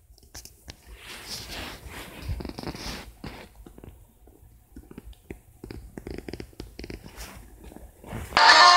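Faint, irregular rustling, small clicks and low rumbles from a phone being handled and tapped, picked up by its own microphone. Loud music starts suddenly near the end.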